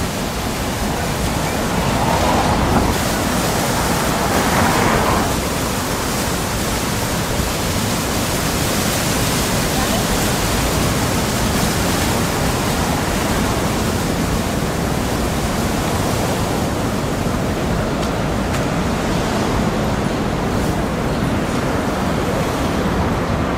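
Steady rushing noise of a busy city street, with faint voices now and then.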